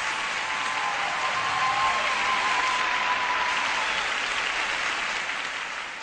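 Audience applauding as a song ends: a steady patter of clapping that fades out near the end.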